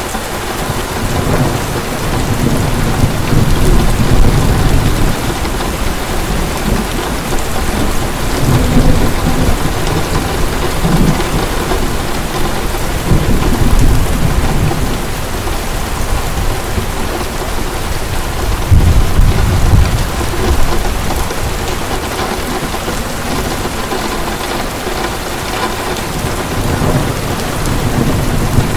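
Heavy rain pouring steadily, with low rolls of thunder rumbling up and fading several times.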